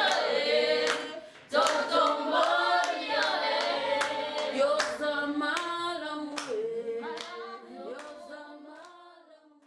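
Voices singing with steady hand claps, a short break about a second in, then fading out over the last few seconds.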